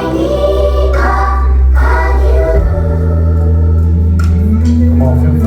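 Live worship music: sung voices holding sustained chords over a deep, steady bass, the chord changing about halfway through.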